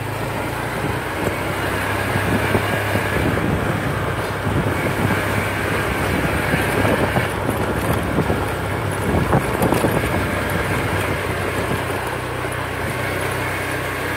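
Small motorcycle engine running steadily at low riding speed, a constant low hum under wind and road noise.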